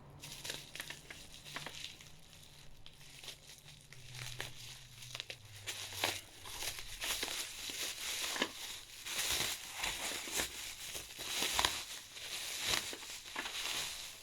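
Packaging crinkling and crackling as a parcel is unwrapped by hand, in irregular bursts that grow louder and busier from about halfway in.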